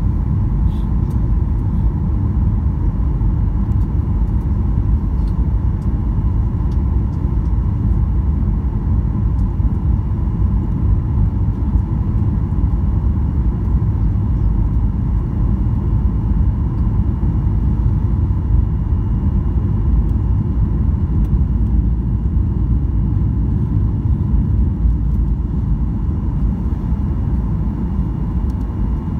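Cabin noise of a Boeing 737-800 on final approach with flaps down: a steady low rumble of its CFM56 engines and the airflow, with a faint steady high whine on top.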